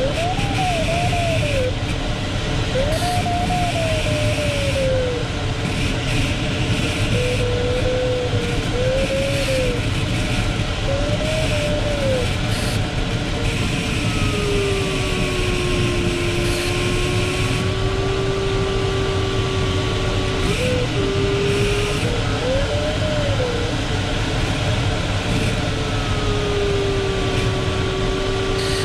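Steady airflow noise in the cockpit of a Ventus 2cxT sailplane in flight, with an electronic variometer tone sliding up and down in pitch in short swells. From about halfway the tone settles into a long, lower, continuous note.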